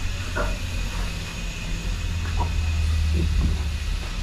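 A steady low rumble that swells a little around the middle, with a few faint short sounds over it.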